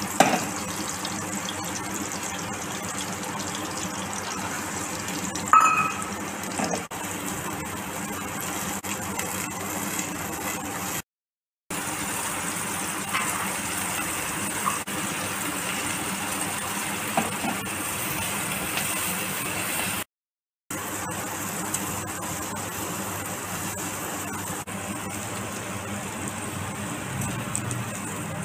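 Mushroom pieces, and later peas with fox nuts, deep-frying in hot oil in a kadhai: a steady sizzle that stops suddenly twice for a moment. There is a brief ringing clink about five and a half seconds in.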